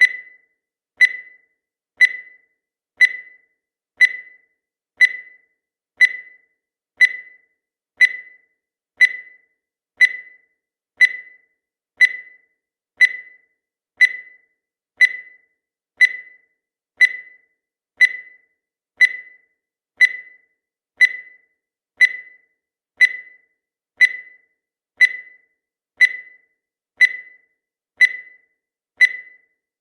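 Countdown timer's electronic beep sounding once a second: short, high tones that die away quickly, one for each second counted down.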